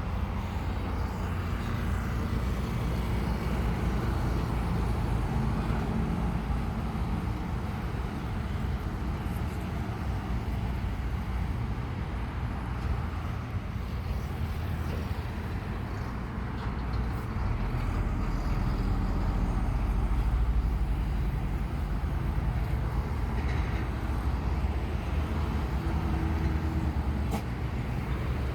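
Steady low engine rumble with road-traffic-like noise, swelling a little about two-thirds of the way through.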